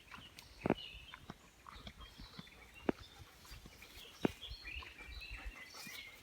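Faint outdoor birdsong, scattered chirps, with three or four sharp clicks about a second or more apart.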